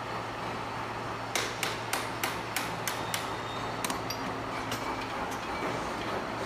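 Hammer tapping on a steel steering rack bar: a quick run of about eight sharp metallic knocks, roughly three a second, in the first half. A steady hum of workshop machinery runs underneath.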